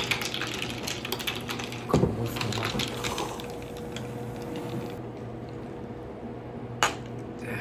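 A long metal stirring rod rattling ice cubes in glass beer mugs, a fast run of clinks that thins out after about three seconds. A single sharp clink near the end.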